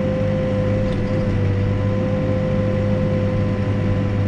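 Backhoe's diesel engine running steadily: an even low hum with a steady higher whine over it.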